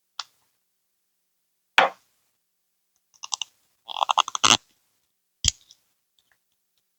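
Separate clicks and taps from slime-making materials being handled. Around four seconds in comes a quick run of sticky clicks, and about five and a half seconds in a solid knock, like something set down on a table.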